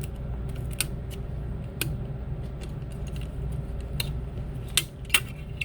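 Small metal repair tools clicking and tapping against an iPod's internals while prying at its bent metal shield, a handful of sharp clicks at irregular intervals, the loudest two near the end, over a steady low hum.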